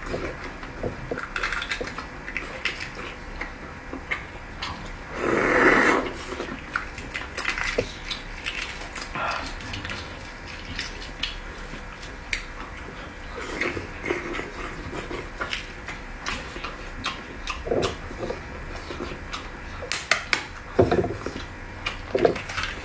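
Close-up eating sounds of boiled eggs being chewed, with wet mouth smacks and occasional clinks of utensils on a dish. There is a louder, rougher burst of about a second just after five seconds in.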